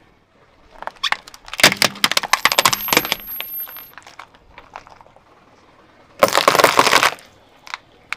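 Small brittle plastic objects cracking and crunching as a car tyre rolls over them. A run of sharp cracks comes in the first few seconds, a dense burst of crackling follows about six seconds in, and a couple of single snaps come near the end.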